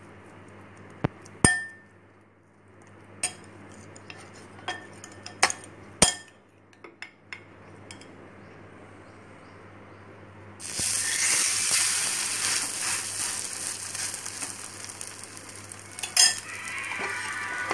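A steel spoon clinks sharply against a glass bowl a handful of times while bread is turned in beaten egg. About eleven seconds in, an egg-soaked bread slice goes onto a hot, ghee-greased cast-iron tawa and sizzles steadily.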